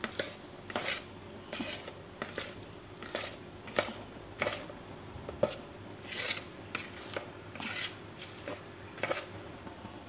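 Spatula scraping and knocking against a plastic mixing bowl while stirring chocolate paste into thick cake batter by hand, in irregular strokes about one to two a second.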